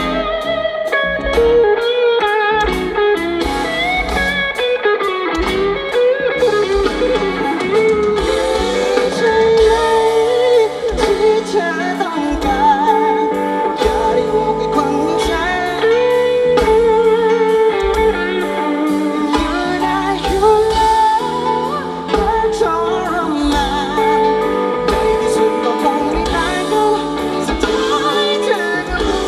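A live rock band playing a song: sung vocals over electric guitar and a drum kit.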